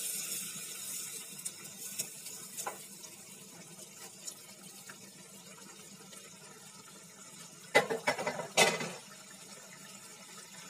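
Wet, boiled chana dal being poured into a pan of simmering curry: a soft, watery sloshing and sizzle that fades over the first few seconds. About eight seconds in come a few sharp knocks.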